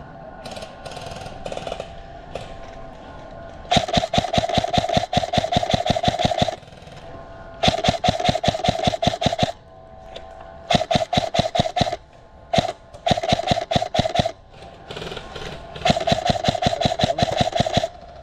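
Krytac Trident MKII CRB-M electric airsoft rifle firing full-auto in several long bursts: a rapid, even clatter of shots over the whine of its motor and gearbox, with short pauses between bursts.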